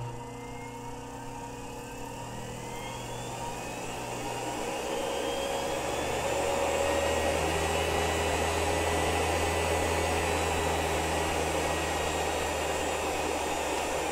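Treadmill DC motor (1¾ hp, 90 V) with its cooling fan and heavy flywheel, running on its speed controller. Its whine rises in pitch and grows louder over the first few seconds as it speeds up, then runs steady.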